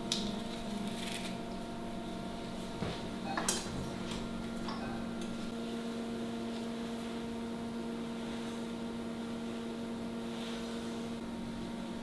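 Steady electrical hum of several fixed tones, with a few light taps and clicks of hand tools on a workbench in the first five seconds.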